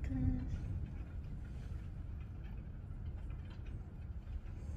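Quiet room tone with a low steady hum and a few faint small clicks; a brief hummed voice is heard right at the start.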